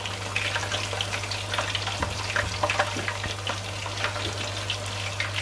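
A whole flour-coated chicken deep-frying in hot oil in a pot: a steady sizzle with many small irregular pops and crackles of spattering oil, just after the chicken went in. A steady low hum runs underneath.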